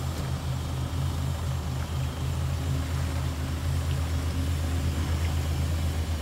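Mini jet boat's engine running at low speed as the boat manoeuvres on the water: a steady low drone with a fast pulsing beat, a little louder near the end.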